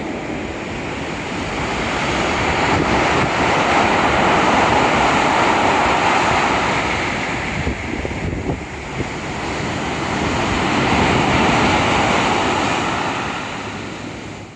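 Rough sea surf breaking and washing in a light storm, with wind buffeting the microphone. The roar swells twice and fades out near the end.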